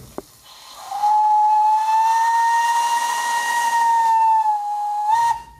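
Steam whistle of an 1896 works steam locomotive, blown by pulling the whistle lever in the cab: a click, then about four seconds of one steady whistle tone over steam hiss, which wavers in pitch near the end and cuts off.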